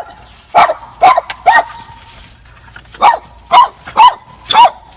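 A dog giving short, high-pitched yelping barks: three quick ones, then after a pause of about a second and a half, four more. It is excitedly greeting its returning owner.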